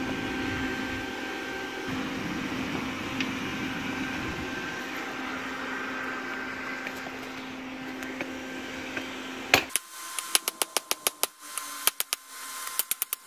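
Steady whir of the coal forge's air blower while the steel heats. Then, about two-thirds of the way in, about a dozen quick ringing hammer blows on the hot 5160 steel laid over the edge of a railroad-track anvil, forging the step where the blade ends and the tang begins.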